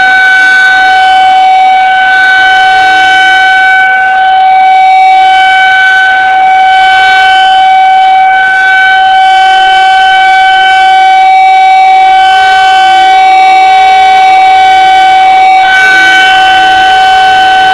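Rotating outdoor warning siren (civil-defense tornado siren) sounding a steady, very loud high tone for a scheduled test. Its loudness swells and dips slightly as the horn turns.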